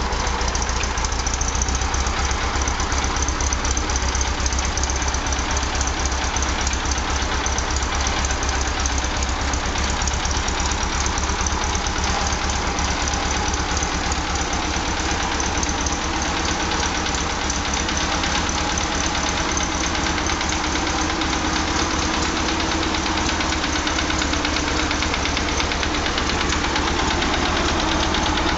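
1948-style Farmall Cub tractor's small four-cylinder flathead engine running steadily, freshly rebuilt with new piston rings and bearings.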